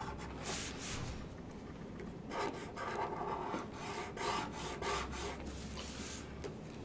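Grayscale felt-tip marker stroked across drawing paper along the edge of a plastic drafting triangle, in a run of about six short strokes.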